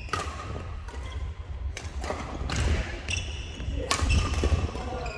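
Badminton rally: sharp racket strikes on the shuttlecock every second or two, with short squeaks of shoes on the court floor.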